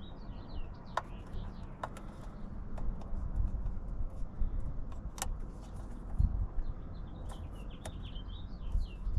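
A handful of sharp clicks and taps from parts and tools being handled while the intake is taken apart, over a low rumble. Birds chirp in the background near the start and end.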